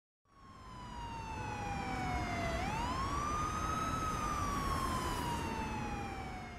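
Emergency vehicle siren wailing over a low rumble: a slow fall in pitch, a quick rise about two and a half seconds in, then another slow fall.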